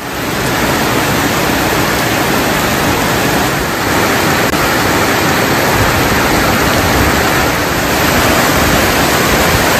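Heavy rain pouring down steadily, fading in at the start.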